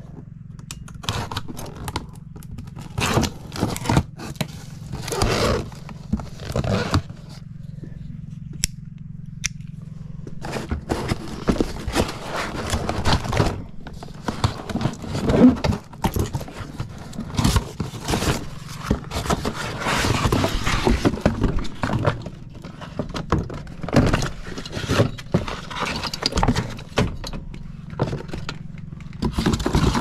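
Metal clinks, scrapes and knocks at uneven intervals as tools and parts are handled while working on an air conditioner condenser's fan motor mounting, over a steady low hum.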